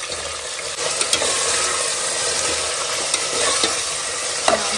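Brinjal, tomato, onion and peas sizzling in the hot oil of an aluminium pressure cooker as they are stirred with a steel ladle. The sizzle is a steady hiss, broken by a few sharp clicks of the ladle against the pot.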